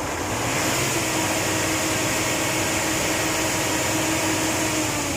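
Mitsubishi Fuso 8M20 V8 diesel engine run up and held at a raised, steady speed: a loud, even drone with a hissing edge that comes in at the start and drops away near the end.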